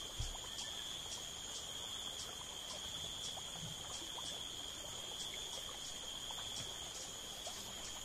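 Insect chorus: a steady high trill with a second, higher call pulsing a few times a second, over a faint hiss with scattered soft ticks.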